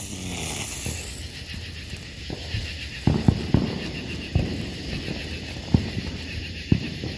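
A handheld sparkler fizzing with a steady hiss, louder in the first second, and scattered sharp crackling pops from about three seconds in.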